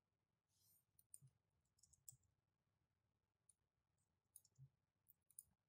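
Near silence, with a few faint, scattered clicks from a computer keyboard and mouse.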